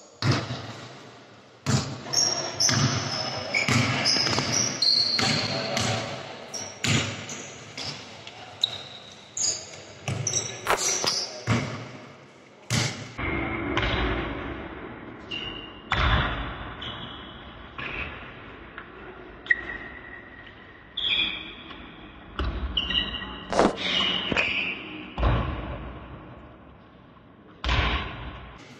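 Basketball bouncing on an indoor court, many irregular sharp thuds echoing around a large hall.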